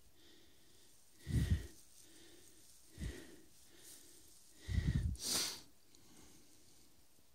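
A person breathing heavily close to the microphone: low puffs and short breathy hisses every second or two, with quieter stretches between.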